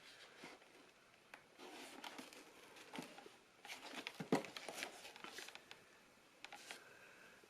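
Small handling noises: scattered clicks and knocks with brief rustling, the loudest knock about four seconds in.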